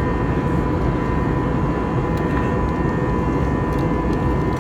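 Jet airliner cabin noise in flight: a steady, loud engine and air rumble with a thin steady whine running through it.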